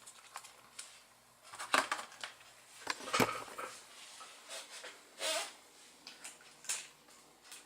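Scattered light clicks and knocks of small objects being handled, with a brief rustle about five seconds in.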